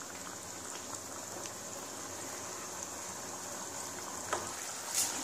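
Tomato-onion curry gravy simmering in a pan, a steady soft crackling and bubbling hiss. Two slightly louder clicks come near the end.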